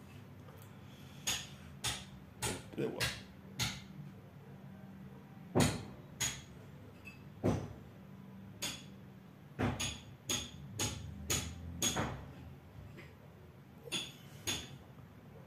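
Hands handling small parts over an open laptop's motherboard: about twenty sharp, irregular clicks and taps, with a short lull a couple of seconds before the end.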